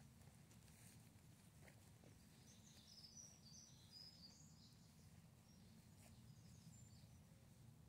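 Near silence: a faint low background rumble, with faint short high bird chirps from about two and a half seconds in and again around six seconds.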